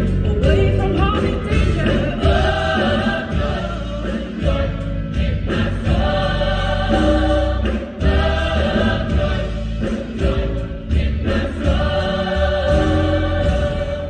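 A choir singing a gospel-style song with instrumental accompaniment and a strong bass line.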